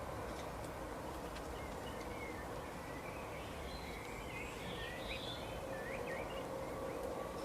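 Small birds chirping: many short, high chirps scattered over a steady background hiss and a faint steady hum.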